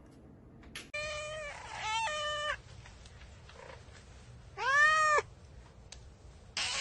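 A domestic cat meowing: a long drawn-out meow about a second in, then a single rising-and-falling meow about five seconds in, and another beginning near the end.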